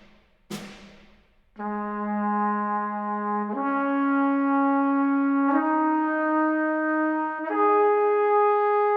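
A single percussion hit about half a second in, then a trumpet playing four long held notes, each about two seconds, stepping up in pitch.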